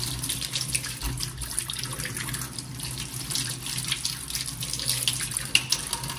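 Kitchen sink tap running, the water splashing irregularly as food is rinsed under it, with a steady low hum underneath.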